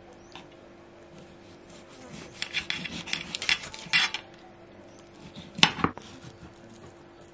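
Kitchen knife sawing and scraping through raw chicken on a glass cutting board: a quick run of rasping strokes for about two seconds, then a sharp knock or two of the blade against the board.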